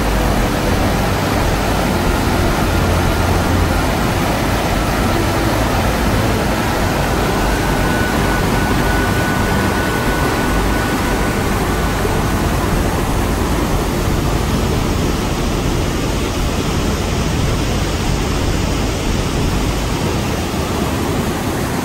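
A waterfall's rushing water: a loud, steady noise with no breaks.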